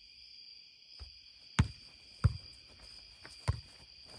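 A ball being hit back and forth in a boardball rally: a handful of sharp thumps about a second apart, the second and third the loudest, from hands striking the ball and the ball bouncing off the board. Under them, a steady chorus of crickets.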